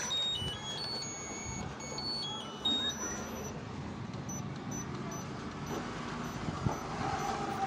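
Whirlpool top-load washing machine's control panel beeping as its buttons are pressed: a short tune of electronic tones stepping up and down in pitch, then from about four seconds in a faint high pip repeating about twice a second, over the machine's low steady running noise.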